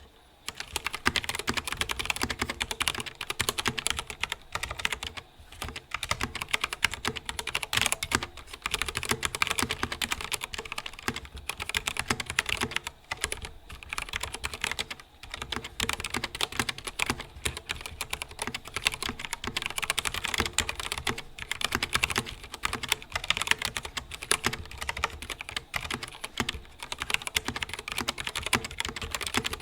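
Continuous fast typing on a YUNZII KC84 hotswap mechanical keyboard with stock switches and stock stabilizers, a dense run of key clacks that starts about a second in.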